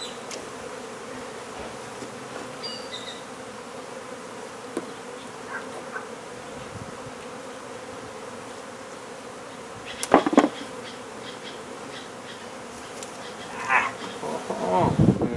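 Steady buzzing of a large honey bee colony disturbed during a hive cutout. A loud knock about ten seconds in and a run of knocks and scrapes near the end.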